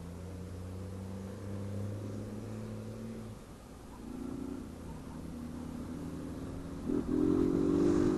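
Honda CG 160 Fan's single-cylinder engine running with its intake hose removed. The revs hold steady, fall about three seconds in, then climb, jumping up louder near the end.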